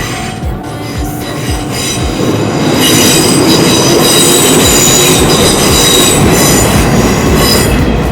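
An electric train passing close by, its wheels knocking over the rail joints, with a loud high wheel squeal from about three seconds in until near the end.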